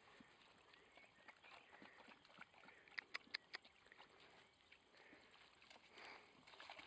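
Very quiet, faint rustling of a dog moving through tall grass and mud. About three seconds in there is a quick run of four sharp clicks.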